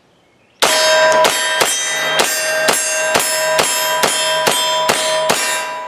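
Henry Homesteader 9mm blowback semi-automatic carbine fired in a quick string, about eleven shots at roughly two a second, starting about half a second in. Steel targets ring with a steady metallic tone on the hits, and the ringing carries on after the last shot.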